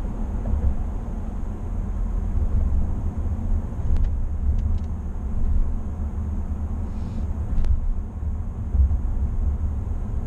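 Steady low road and drivetrain rumble inside the cab of a GMC Sierra 1500 pickup cruising at highway speed, with a few faint clicks.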